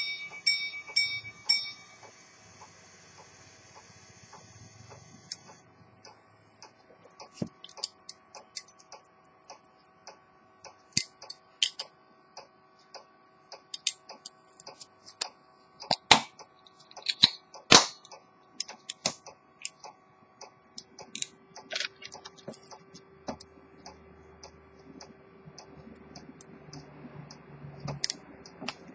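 Gongs of an Edmond Mathey-Tissot minute repeater pocket watch striking their last few notes and ringing out, fading over about five seconds. Scattered irregular clicks and knocks follow, the loudest about two thirds of the way through.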